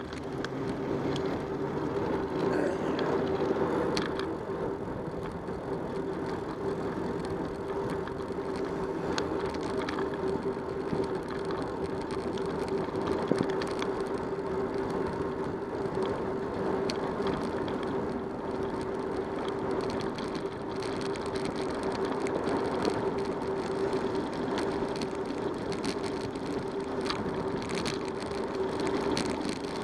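Bicycle riding noise picked up by a bike-mounted camera: tyres rolling on asphalt and wind on the microphone, with a steady hum and small rattles and clicks from the bike and mount over bumps.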